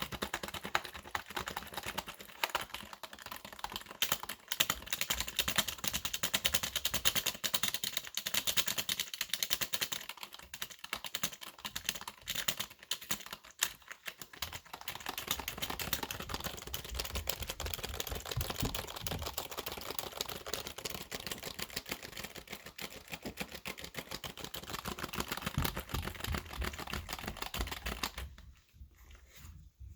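Computer keyboard typed on fast and hard: a dense, continuous run of key clicks and clacks that stops shortly before the end.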